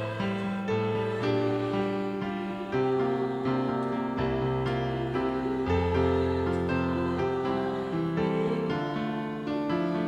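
A church keyboard instrument playing a slow hymn in held chords that change every second or so.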